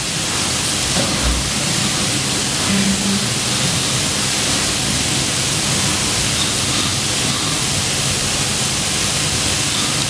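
Loud, steady electronic static hiss on the sound feed, cutting off suddenly at the end; it comes during a fault with the computer that plays the service's song videos.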